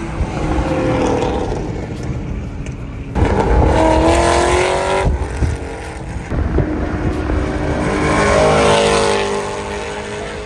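Cars accelerating hard in a roll race, with engines revving up in two loud surges that rise in pitch, one about three seconds in and one about six seconds in, over road and wind noise, then fading near the end.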